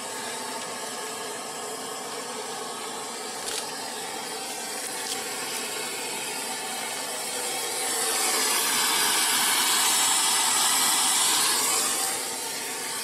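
Steady hiss from the steaming noodle-boiling pot of a mie ayam cart, swelling louder for about four seconds in the second half, with a couple of faint clicks.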